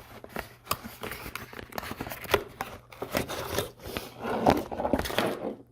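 Product packaging being opened by hand: irregular crinkling, tearing and rustling with sharp little clicks and snaps.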